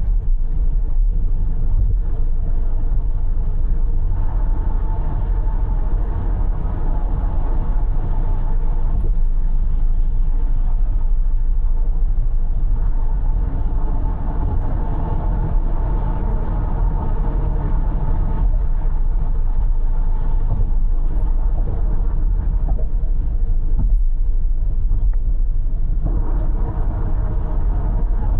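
Car driving at expressway speed: a steady low rumble of tyre and engine noise, with a higher tyre hiss that swells and fades over several seconds at a time.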